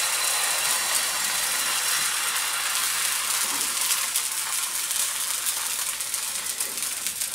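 Thin pancake batter of flour and sparkling water sizzling in a hot, lightly oiled frying pan: a steady hiss, with small crackling pops that come more often from about halfway through.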